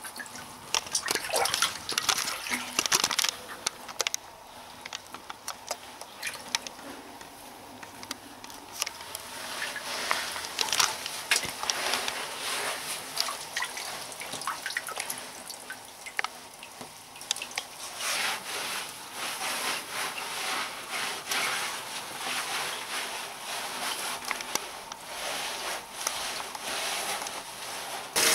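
Bathwater sloshing and dripping in a bathtub as a person moves about and washes in it: irregular small splashes and drips that come and go, busier at some moments than others.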